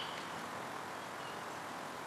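Steady outdoor ambience, an even hiss with a couple of faint bird chirps.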